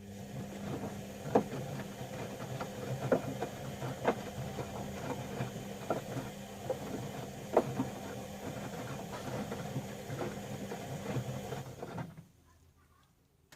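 Bauknecht Dynamic WA 1460 Sports washing machine turning its drum in the wash cycle: a steady motor hum with irregular clacks and knocks as the laundry tumbles. It stops abruptly about twelve seconds in, leaving the pause between drum turns.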